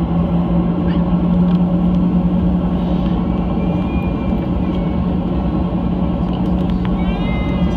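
Steady cabin drone inside a Boeing 737-800 on the ground, a low rumble with a constant hum from the aircraft's engines and air systems.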